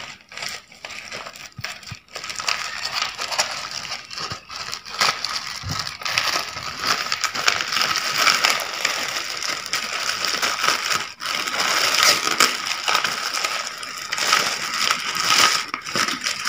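Clear plastic mailer bag and brown paper envelope crinkling and rustling as a parcel is pulled open by hand. A dense, crackly rustle, patchy at first and fuller and louder from about two seconds in.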